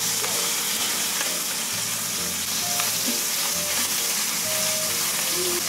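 Lobster tails sizzling steadily in hot oil as they sear meat-side down in a frying pan.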